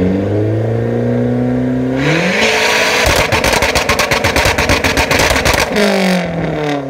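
Car engine through a loud performance exhaust being revved: the revs climb, hold, then climb again to high revs, where a rapid, evenly spaced stutter of exhaust pops sounds for nearly three seconds before the revs fall away.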